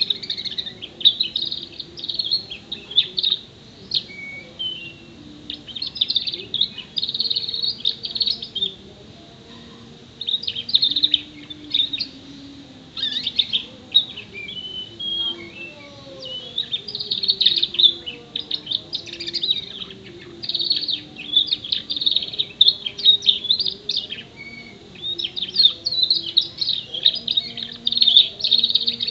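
Young canary, about six months old, singing in bouts of rapid high chirps and trills with short pauses between phrases. Its song is filled in with learned phrases of other birds (tree sparrow, prinia, white-eye, black-throated canary), and the owner rates it at only about half its full volume.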